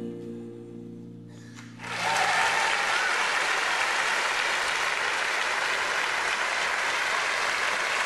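The last held notes of a slow song die away, then an audience breaks into loud, steady applause about two seconds in.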